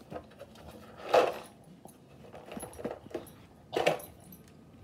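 Dog treats rattling inside a plastic milk carton as it is moved about on the rug, with two louder rattles, about a second in and near the end, and a few small clicks between.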